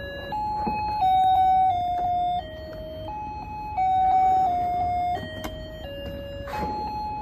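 A simple electronic tune of plain beeping notes, one at a time, stepping through a melody at roughly two notes a second. A few short knocks of the toy's plastic being handled come through, one near the end.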